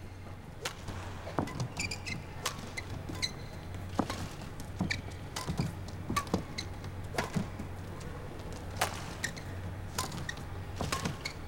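Badminton rally: sharp racket strikes on the shuttlecock at irregular intervals, roughly one a second, over a low steady hum.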